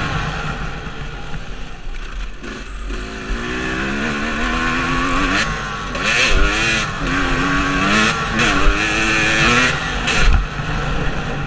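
Dirt bike engine being ridden hard, its pitch rising and falling several times as the rider opens and closes the throttle and shifts, with wind noise over it.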